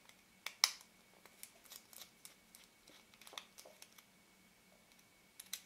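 Irregular light clicks and scrapes of small metal lens parts being handled while the aperture ring is taken off, the sharpest click about half a second in and a short pair near the end.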